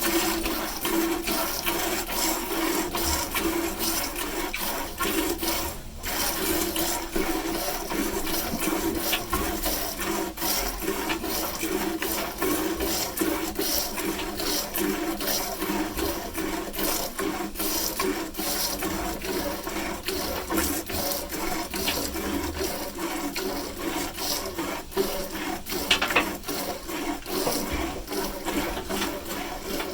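Hand milking a cow: streams of milk squirting into a pail in a quick, steady rhythm of rasping squirts.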